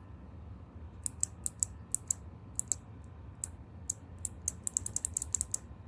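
Kailh Box White clicky keyboard switches being pressed, each keystroke giving a sharp, crisp click, the clicks mostly in close pairs as the click bar snaps on press and on release. They start about a second in and come quicker and denser near the end, like fast typing.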